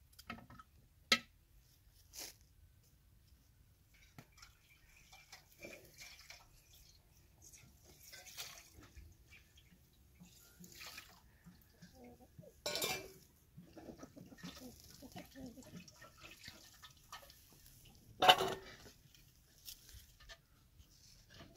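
Water splashing into metal bowls as vegetables are washed, poured from a plastic watering can, with scattered clicks and knocks of handling. A short splash near the end is the loudest sound.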